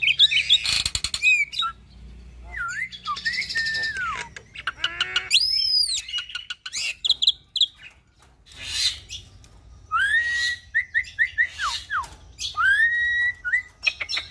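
Hybrid myna (Nias hill myna × Asian pied starling) singing a varied, full-repertoire song: whistled notes and sweeping pitch glides mixed with chattering rattles. It goes in phrases with short pauses, ending in a run of short whistles.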